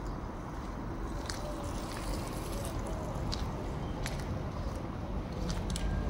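Outdoor street ambience: a steady low rumble with a few light, scattered clicks and taps.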